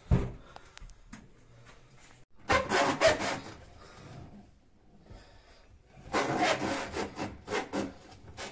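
A thump at the start, then two spells of rough scraping and rubbing, the first about a second long and the second about two seconds, from hand work at the underside of a newly hung wall-mounted boiler.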